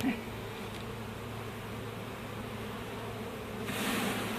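A colony of honeybees in an opened nest box buzzing with a steady hum of many wings. About three and a half seconds in, a rush of hiss-like noise rises over the buzzing.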